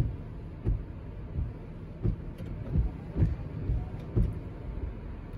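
Windshield wipers of a 2022 Toyota 4Runner sweeping the glass, heard from the cabin as a series of low thumps about one or two a second. The idling engine runs steadily underneath.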